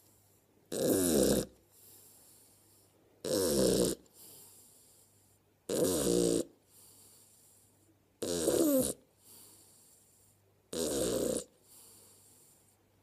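Shar Pei puppy snoring in its sleep: five loud snores, each under a second long, come about every two and a half seconds, with a faint breath between them.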